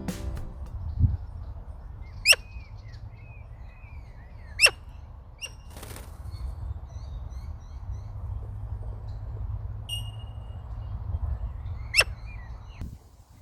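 Birds calling outdoors: three sharp, very short calls about two, four and a half and twelve seconds in, with softer scattered chirps between them, over a steady low rumble that fades out near the end.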